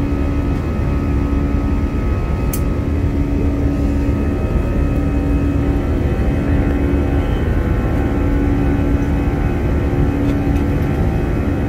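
Steady cabin noise of a jet airliner in flight: engine and airflow noise with a low hum that swells and fades every few seconds. A faint click comes about two and a half seconds in.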